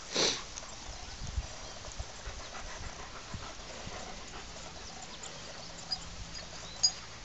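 An elderly Airedale terrier panting softly as he walks slowly on grass.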